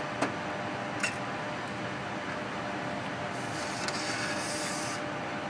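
Steady fan noise of a laminar flow cabinet, with two light clicks about a quarter second and a second in. From about three seconds in, a petri dish is slid across the stainless-steel bench with a brief scraping hiss.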